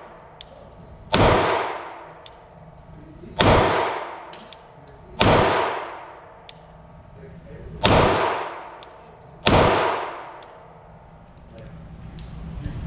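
Five 9mm shots from a Glock 19 pistol fitted with a Trijicon RMR red dot, fired at uneven intervals of about two seconds, each followed by a long echo off the walls of an indoor range. Ejected brass casings clink on the concrete floor between shots, and handling noise follows near the end as the gun is lowered.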